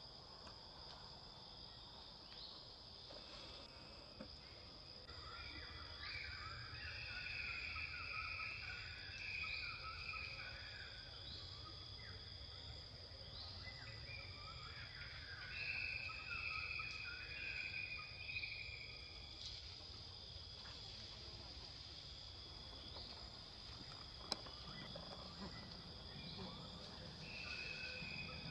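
Outdoor insect chorus: a steady high-pitched drone, swelling three times with louder bouts of calls. One sharp click about three quarters of the way through.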